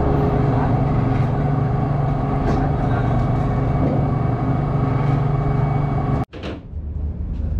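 Ship's deck machinery running with a steady low hum and a few constant tones above it. It cuts off abruptly about six seconds in and gives way to a fainter, different hum.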